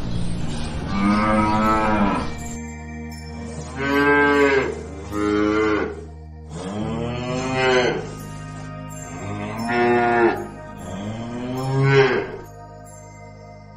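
Cattle mooing, about six long moos in turn, each rising and then falling in pitch.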